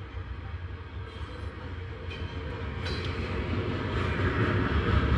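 Norfolk Southern freight train of loaded coal hopper cars rolling past: a steady rumble of steel wheels on the rails that grows louder over the second half.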